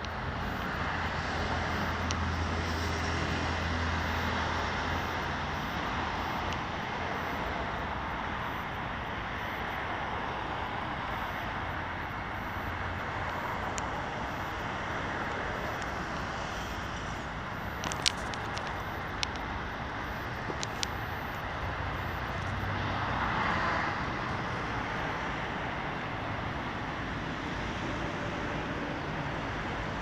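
Steady roar of distant road traffic, swelling slightly now and then, with a few small clicks a little past halfway.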